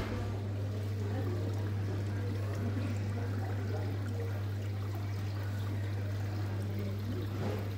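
A steady low hum with a constant hissing, rushing noise over it, and faint scattered ticks.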